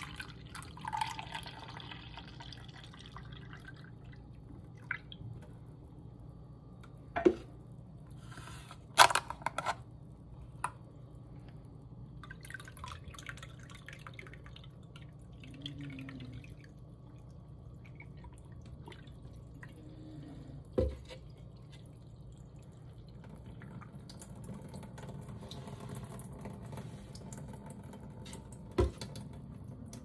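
Coffee pouring and trickling through a miniature ceramic toilet as it is flushed, with faint dripping and running liquid throughout. Several sharp clicks and knocks break in, the loudest a little after the first quarter.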